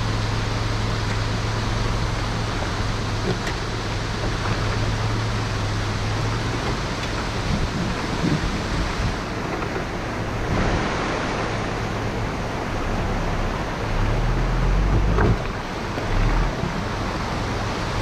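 A Mitsubishi Pajero Sport's common-rail diesel engine drones steadily at low pitch under an even rushing noise. The sound changes character once, about ten seconds in.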